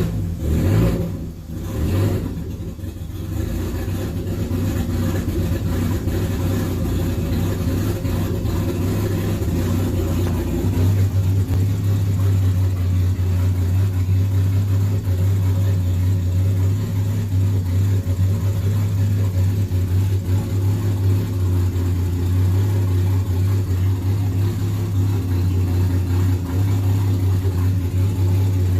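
Turbocharged Nissan RB-series straight-six engine running, with a few short blips of the throttle in the first couple of seconds and then a steady idle that grows louder about eleven seconds in. It keeps running now that the airflow meter signal wire is reconnected, where it used to fire up and die.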